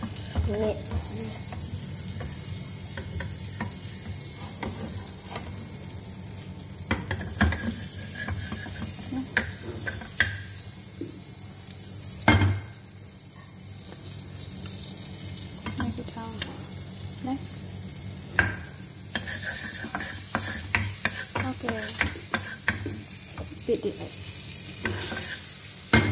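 Butter sizzling as it melts in a frying pan, stirred with a wooden spatula that scrapes and clicks against the pan. One sharp knock comes about twelve seconds in.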